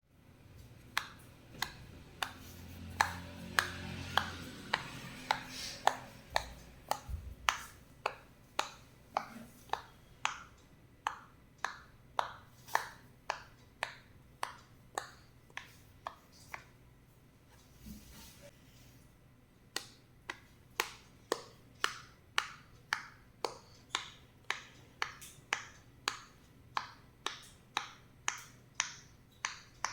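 Silicone pop-it fidget toy bubbles being pushed through one after another, a sharp pop about twice a second, with a pause of a few seconds past the middle.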